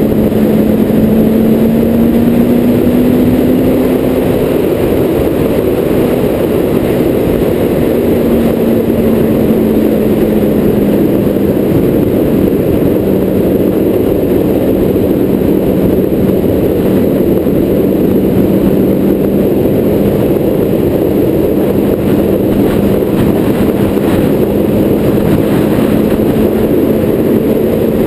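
Car engine droning steadily at highway speed over heavy road noise. Its pitch climbs slightly in the first few seconds, then eases down and holds steady.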